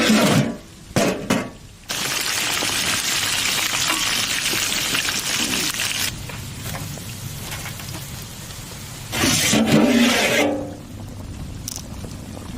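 Mutton curry cooking in a large pot, sizzling and being stirred. A loud hiss runs from about two to six seconds in and then drops to a softer sizzle, with a short pitched sound around nine seconds in.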